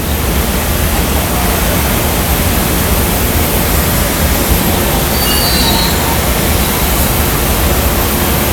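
Steady loud rushing noise of a glass factory's gas-fired furnaces and glory holes running, with a faint high squeal briefly about five seconds in.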